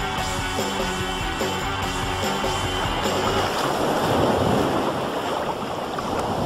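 Guitar-led background music with a steady beat for about three seconds, then giving way to a loud rush of water.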